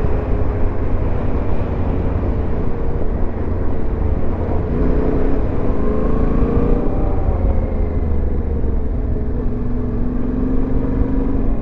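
Yamaha Ténéré 700's parallel-twin engine running under way, its note rising and falling with the throttle around the middle, over a steady low rumble of wind and road noise.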